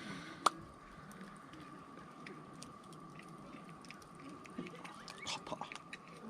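Wood campfire crackling: scattered small pops and ticks, with one sharp snap about half a second in.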